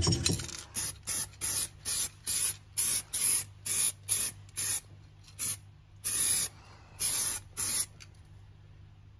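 Aerosol rust-protection spray can hissing in about a dozen short bursts, then a few longer ones, and stopping about 8 seconds in, as an anti-rust coating goes onto a brushed-down exhaust pipe. A brief rubbing noise comes right at the start.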